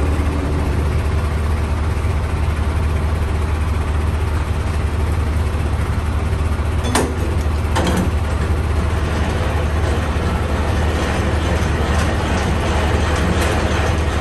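Semi truck's diesel engine running with a steady low hum, and a couple of sharp clicks about seven and eight seconds in.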